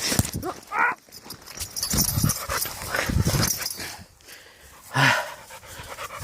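Five-month-old Dogo Canario puppy vocalising in several short bursts while attacking a person, the loudest burst about five seconds in.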